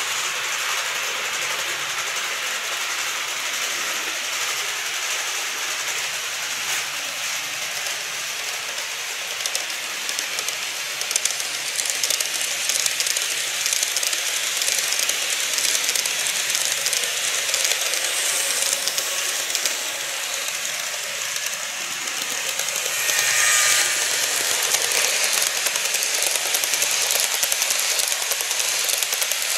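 KATO N-gauge model trains running past on the layout track: a steady hiss with rapid wheel clicking over the rail joints. The clicking grows louder about ten seconds in as the 415 series EMU passes, and there is a brief louder stretch with a faint whine later as the Seven Stars in Kyushu train goes by.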